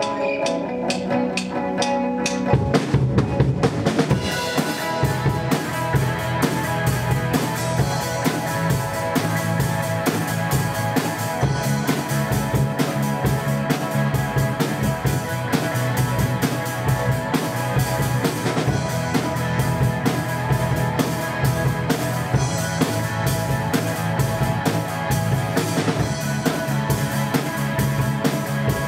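Live band playing: guitar chords ring on their own at first, then the drum kit comes in with a fill about three seconds in and the full band of drums, bass and guitars plays on with a steady beat.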